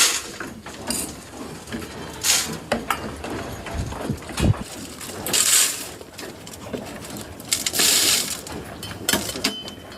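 Goats moving about: irregular knocks and clatter, with bursts of rustling about two, five and eight seconds in.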